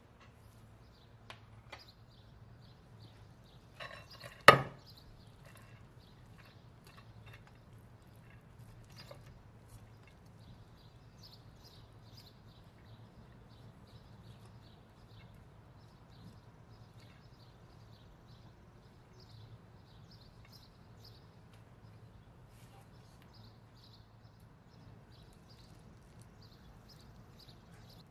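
Kitchen utensils knocking and lightly scraping against the pot of cooked rice: a few light clicks, then one sharp loud knock about four and a half seconds in, followed by faint scattered ticks over a low steady hum.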